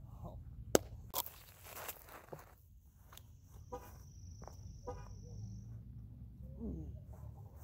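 Open-air ambience with a steady low wind rumble, a sharp click about three-quarters of a second in, and a thin high whine in the middle with a few short chirps from small birds or insects.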